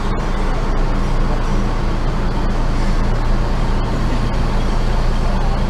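Coach bus diesel engine idling steadily in neutral, a low even hum heard from inside the driver's cab.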